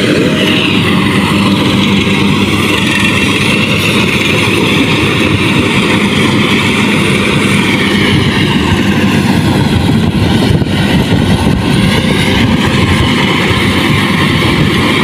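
Rice combine harvester engine running steadily and loud, a constant mechanical drone with no change in speed.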